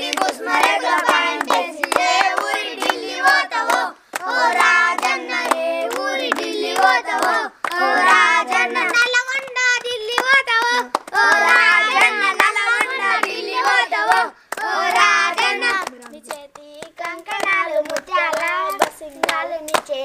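A group of girls and children singing a folk song together, clapping their hands in a steady rhythm to the beat.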